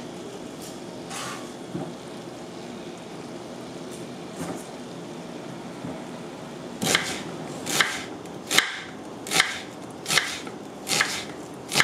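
Kitchen knife slicing through an onion onto a wooden cutting board: seven crisp cuts a little under a second apart, starting about seven seconds in, over a steady low background noise.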